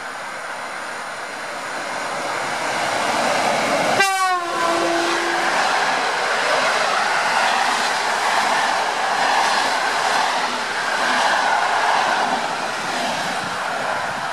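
A passing InterCity train hauled by an EP07 electric locomotive. About four seconds in comes a short horn blast, and the steady wheel-on-rail noise of the coaches going by continues after it.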